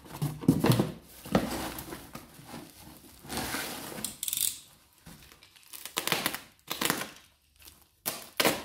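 Cardboard, packing tape and bubble wrap rustling, crinkling and tearing as a parcel is cut open with a utility knife and a tape-wrapped bundle is pulled out, in a run of irregular rustles and scrapes with a longer tearing sound about three and a half seconds in.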